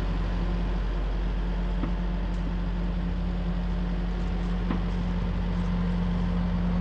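Case compact excavator's diesel engine running steadily at working speed as the boom lifts a bucket of soil, a constant low hum with a couple of faint clicks.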